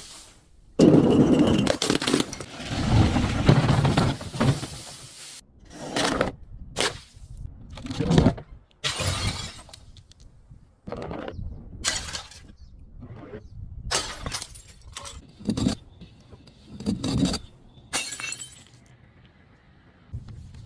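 Glass bottles breaking and crunching: a long crashing shatter lasting about four seconds, then a string of separate sharper crashes and crunches of glass.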